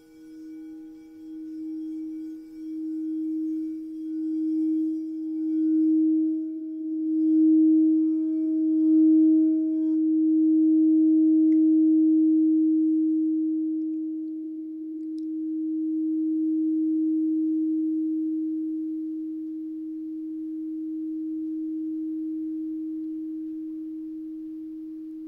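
A singing bowl played by rubbing its rim, sounding one low sustained tone with fainter overtones above it. The tone wavers about once a second as it swells louder over the first ten seconds or so, then slowly ebbs and swells in long waves.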